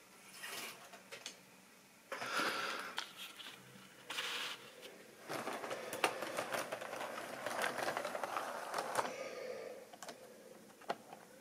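Model railway diesel locomotives rolling along model track, their wheels clattering and clicking over the rail joints in several bursts, the longest from about five to ten seconds in.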